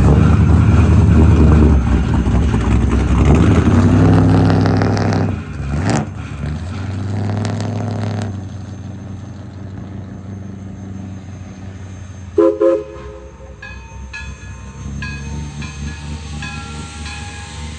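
East Broad Top No. 16, a narrow-gauge 2-8-2 steam locomotive, at a grade crossing: a loud low rumble fills the first five seconds, two short whistle toots sound about twelve seconds in, and then the locomotive's bell rings with even strokes.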